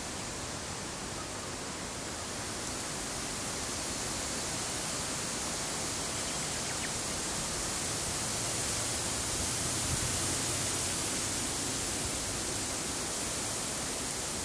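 Steady outdoor background hiss with no distinct events, swelling slightly around the middle.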